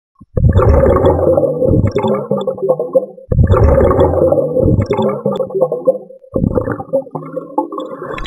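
Underwater bubbling: three long gurgling bursts of about three seconds each, one after another.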